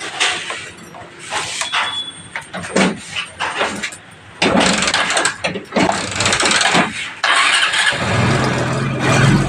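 Bajaj Discover's single-cylinder four-stroke motorcycle engine being started after a camshaft replacement. It is cranked with loud irregular noise for a few seconds, catches near the end and settles into a steady idle.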